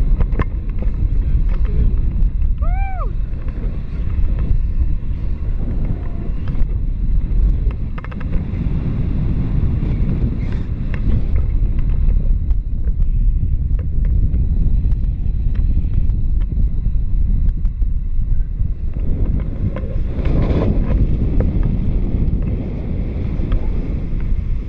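Wind buffeting the microphone of a camera held out on a selfie stick in paragliding flight: a steady low rumble.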